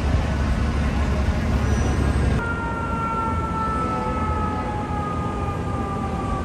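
Heavy engine and street traffic rumble. About two seconds in, after a cut, a fire truck siren winds slowly down in pitch as one smooth falling tone.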